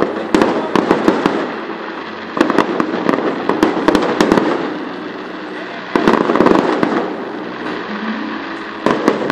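Aerial fireworks display: rapid runs of sharp bangs and pops from bursting shells, coming in several waves with short lulls between them.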